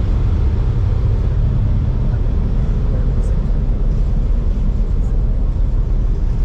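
Steady low rumble of a passenger ferry under way.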